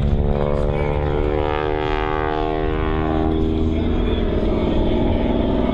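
Aerobatic biplane's propeller engine droning as the plane climbs straight up, its pitch sliding steadily down over the first three seconds or so, then turning to a rougher, fluttering drone.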